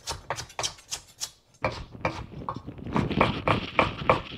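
Chef's knife chopping carrots, then celery, on a wooden cutting board: a run of knife strikes on the board, roughly four a second. After a brief break about a second and a half in comes a quicker run over a haze of crackly microphone static.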